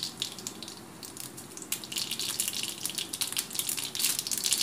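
Mustard seeds crackling and popping in hot oil in an iron kadai, over a steady sizzle. The pops are sparse at first and come thick and fast from under two seconds in, as the seeds start to splutter.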